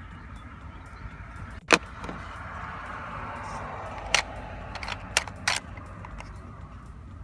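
Hard plastic parts of a Colop Printer 30 self-inking stamp clicking as they are handled: a few sharp clicks, the loudest about two seconds in and a cluster of three between four and six seconds in. A steady hum runs beneath.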